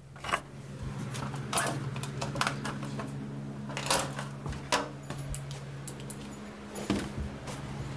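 Irregular knocks, bumps and rustling from someone climbing down out of an attic, with a steady low hum that stops about two-thirds of the way through.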